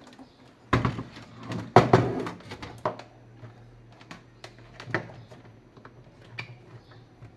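Knocks and thumps of a Philips FX30 mini hi-fi system's plastic cabinet being set down and shifted on a wooden desk, the loudest about two seconds in. Lighter clicks and taps follow as its cables are handled behind it.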